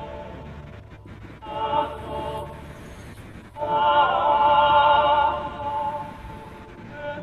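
Choral singing with vibrato from a film soundtrack, swelling loud a few seconds in, with the sound of an oxygen mask, heard through a video call's audio.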